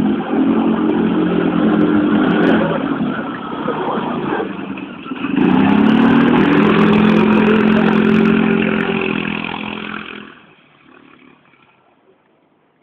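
Sidecar motorcycle engine pulling hard in two spells of acceleration, its pitch climbing about five seconds in, then falling away to faint near the end.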